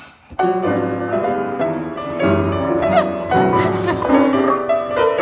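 Piano-led background music that comes in about half a second in, after a short quieter moment.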